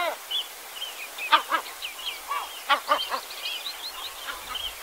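Common redshank calling: a run of short, sharp piping notes, several a second, with other birds calling around it.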